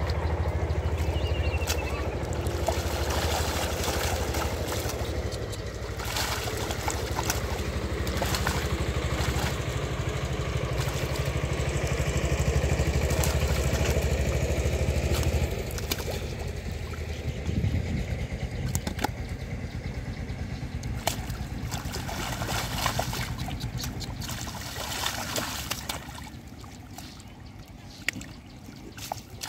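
Muddy shallow water splashing and sloshing as a large catfish is grabbed and wrestled by hand. Over the first half, a steady low engine-like drone is the loudest sound; it cuts off suddenly about halfway.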